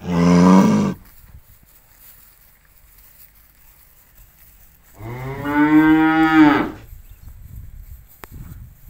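Cattle mooing twice: a short moo right at the start, then a longer moo about five seconds in that lasts nearly two seconds.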